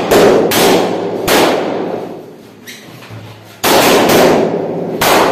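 Rubber party balloons bursting with sharp, loud pops as they are squeezed and punched by hand: a quick run of pops in the first second and a half, a short lull, then more from about three and a half seconds in.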